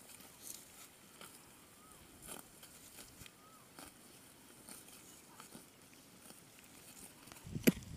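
Water buffalo grazing: faint, scattered tearing and chewing sounds as it crops short grass, with one sharp click near the end.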